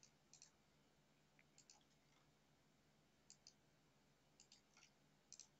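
Faint computer mouse clicks, mostly in quick pairs, about seven times over a near-silent room with a low steady hum.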